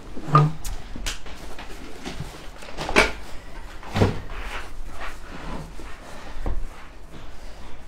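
Eating at a table: chewing, with a handful of sharp knocks and clinks of a glass cup and dishes being handled and set down, the loudest about three seconds in.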